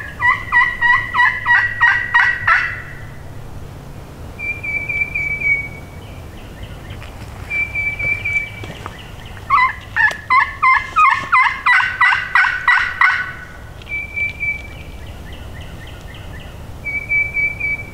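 Turkey calling, most likely a hunter's turkey call: a fast run of sharp notes at the start, another from about ten seconds in, and single drawn-out higher notes in between, calling to get a gobbler to answer.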